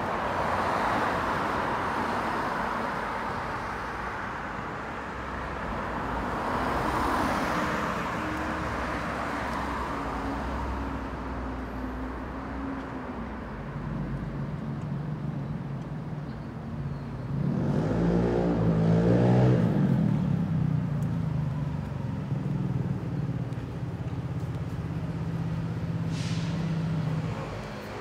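Street traffic: cars passing with tyre noise, then vehicle engines running from about halfway, loudest as one passes close about two-thirds of the way in. A short hiss comes near the end.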